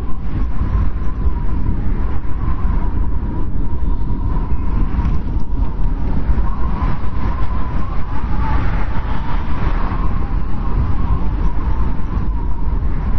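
Blizzard wind blowing steadily: a deep rumble with a thin, wavering whistle over it that swells and fades.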